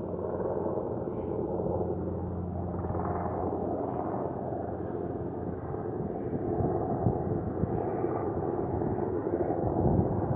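Steady distant engine rumble, with irregular low thumps on the microphone in the second half.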